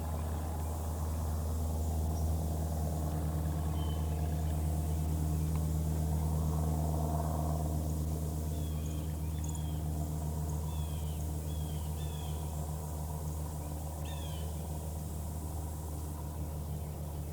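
A steady low engine hum, like an idling motor, with a few short, falling bird chirps partway through.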